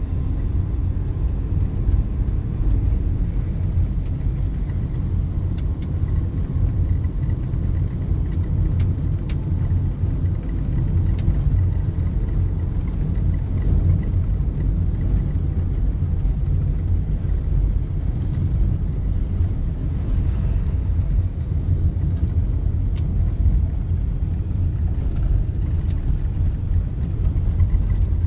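Steady low rumble of a car driving on a rough dirt road, heard inside the cabin: engine and tyre noise, with a few faint ticks scattered through.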